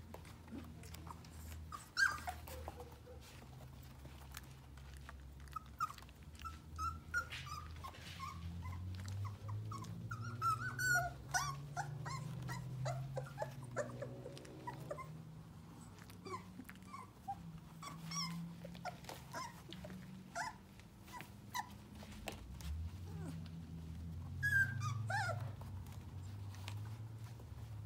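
A litter of four-week-old sheepadoodle puppies at play, giving many short high squeaks and yips scattered throughout over a low rumble.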